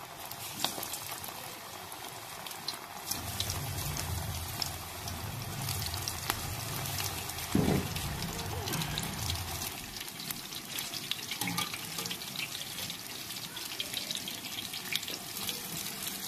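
Vegetable pakoras deep-frying in hot oil in a karahi: steady sizzling and fine crackling from the bubbling oil. There is a brief low bump about halfway through.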